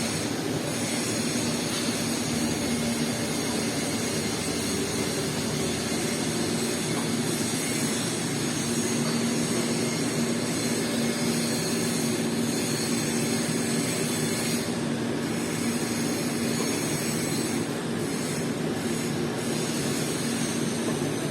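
Steady, unchanging mechanical hum over a hiss from welding equipment at a stainless steel pipe welding job.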